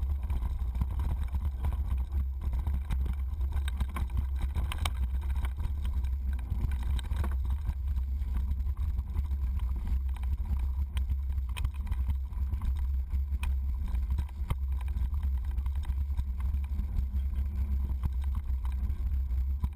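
Riding noise picked up by a stem-mounted GoPro HD on a mountain bike descending a dirt trail: a steady deep rumble from wind and tyres on the dirt, with frequent small rattles and knocks from the bike over bumps.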